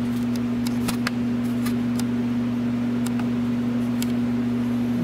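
A steady low machine hum, like a motor running, with a few scattered light clicks and taps on top.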